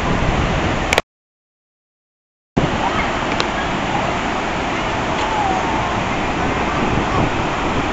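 Steady rushing noise of floodwater running over a flooded road, with wind rumbling on the microphone. The sound cuts out completely about a second in and comes back a second and a half later.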